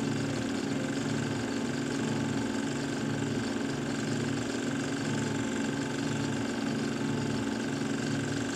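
Steady mechanical drone, like a motor running, with a low pulse that repeats about every three-quarters of a second.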